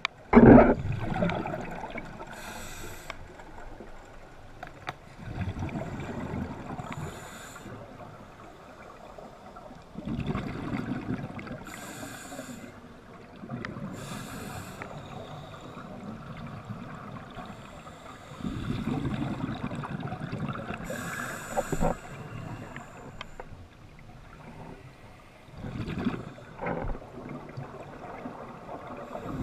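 Scuba diver breathing on a regulator, heard underwater through the camera housing: short hissing inhalations and longer bubbling exhalations every few seconds. A loud knock comes about half a second in.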